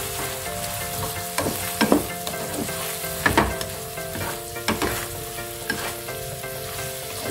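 Squid and petai beans sizzling in a stone-coated wok as a spatula stirs them, with a little sauce cooking down. The spatula scrapes and knocks against the pan several times, loudest about two seconds in and again about three and a half seconds in.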